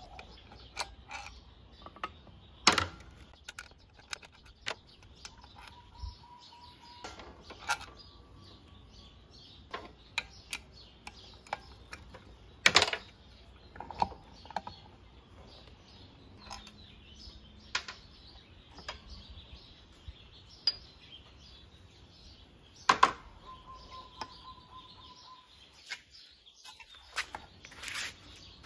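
Scattered clicks, taps and clunks of metal parts and tools as a Honda Ruckus 50 engine is worked loose from its aluminium transmission case, with four louder knocks spread through.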